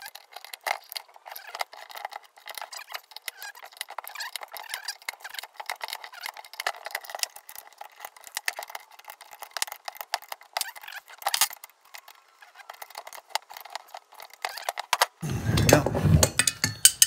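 Steel wrenches clinking against the bolts and nuts of a Husky round-bar weight-distributing hitch head as they are snugged up: a long run of small, quick metallic clicks and taps. About fifteen seconds in come louder, heavier knocks as the hitch head is handled.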